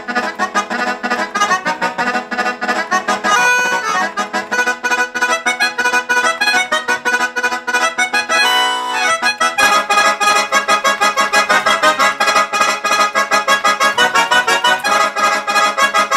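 Instrumental background music with a quick, steady pulse of notes; about halfway through, a held chord briefly breaks the rhythm.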